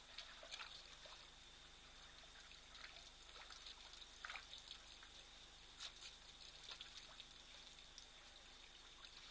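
Faint trickling and splashing of water as African elephants drink at a waterhole, in scattered soft splashes over a steady hiss and a thin, steady high tone.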